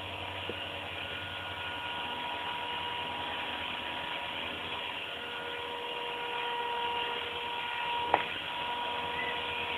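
Walkera Creata 400 RC model helicopter running, its motor and rotor giving a steady whine of a few thin tones over an even hiss. A single sharp click about eight seconds in.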